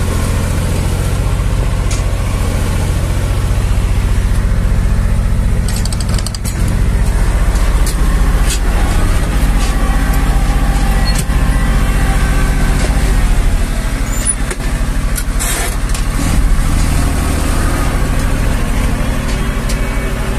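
Zetor 5011 tractor's three-cylinder diesel engine running steadily under load while pulling a two-furrow plough, heard from inside the cab, with a few light clicks.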